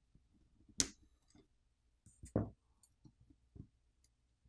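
Sharp clicks of a metal pry tool on a smartphone's circuit board, popping the thin antenna coaxial cable connectors off. The loudest click comes about a second in, another click with a dull knock about two and a half seconds in, and a few softer taps.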